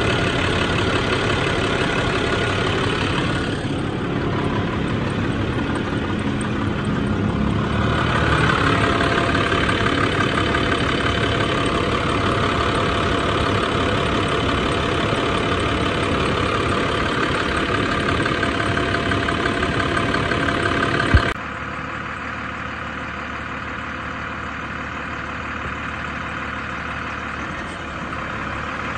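International WorkStar 7300 truck's diesel engine idling steadily, heard close up at the open engine bay, with a steady whine coming in about eight seconds in. About 21 seconds in the sound cuts off with a click to the truck running more quietly.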